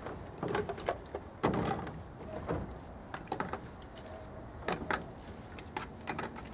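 Dishes being hand-washed in a stainless steel bowl of water: irregular swishes of water and scrubbing, with short knocks and clinks of cups and plastic dishes.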